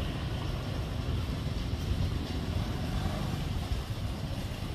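Steady low rumbling outdoor background noise, with wind buffeting the microphone.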